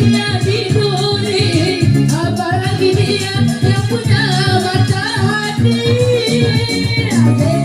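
Live orgen tunggal music: a sung melody over an electronic keyboard accompaniment with a steady, repeating bass beat.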